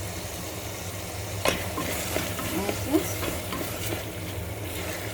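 A spoon stirring chopped chicken and onion frying in a pot with a light sizzle, the spoon knocking sharply against the pot twice, about a second and a half and three seconds in.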